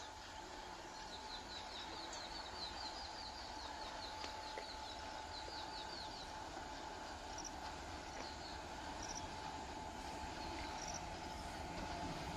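Distant M5C diesel locomotive approaching, its low rumble faint and slowly growing louder. A quick series of high chirps runs through the first half over outdoor ambience.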